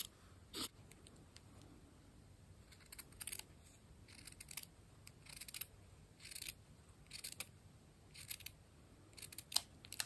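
Small scissors snipping through fabric to cut out a circle: short, faint snips, roughly one a second.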